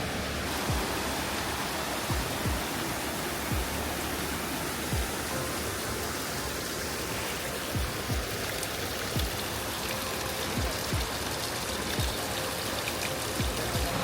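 Steady rushing of a mountain stream, with soft low thuds of a hiker's footsteps about once or twice a second.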